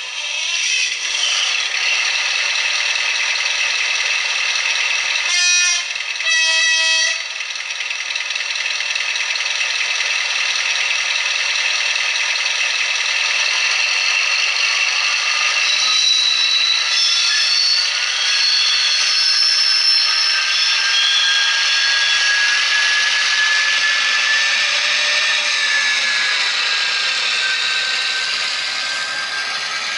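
Sound decoder of a Mehano G2000 H0 model diesel locomotive playing a running diesel engine, with two short horn blasts about a second apart some five seconds in. The engine sound then slowly rises in pitch as the train pulls away.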